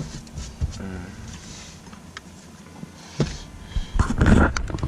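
Scattered clicks and knocks from parts being handled in a pickup's broken steering column, ending in a short, louder clatter near the end.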